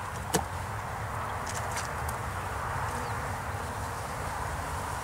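Honey bees from a package buzzing steadily as a hum. A single sharp knock sounds about a third of a second in.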